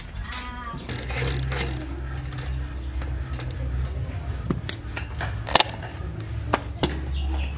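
A few sharp metallic clicks and clinks of bicycle parts being handled, as a rusty multi-speed freewheel and a plastic spoke guard are taken off an old rear wheel, over a steady low hum.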